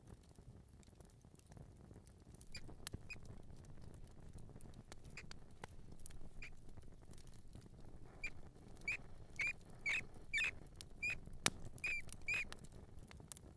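Mouse squeaking and scurrying: a faint pattering of small feet, with short high squeaks that become frequent and louder in the second half, about a dozen in quick succession.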